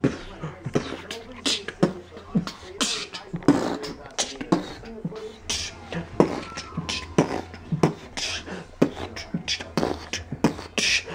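A man beatboxing: quick, rhythmic vocal drum sounds and mouth clicks over a steady low hum.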